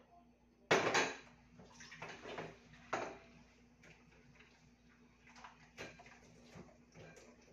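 Dishes and utensils clattering as they are handled in a kitchen sink while washing up: a loud clatter about a second in, more knocks around two and three seconds, then lighter clinks.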